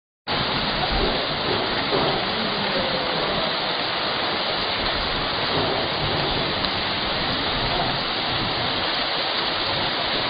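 Heavy rain pouring steadily on a street and rooftops, an even, unbroken hiss.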